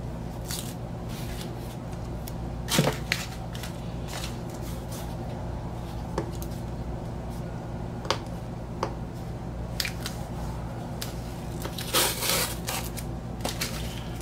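Fingernails picking and scratching at packing tape on a cardboard record mailer, with scattered sharp clicks and a longer crackling scrape of tape near the end, over a steady low hum.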